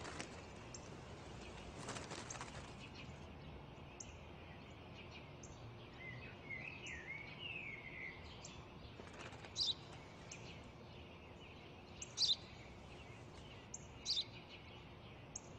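Sparrow chirping: a twittering run about six to eight seconds in, then short single chirps, over a faint outdoor background.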